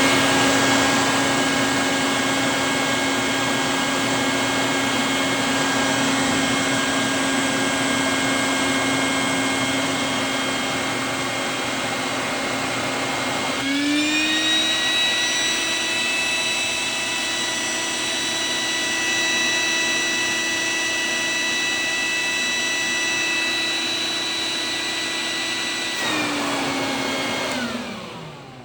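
Stinger shop vac running with a steady, loud motor whine. About halfway through the pitch jumps up and holds higher while the suction is blocked, which makes it loud. It drops back a couple of seconds before the vac is switched off and winds down.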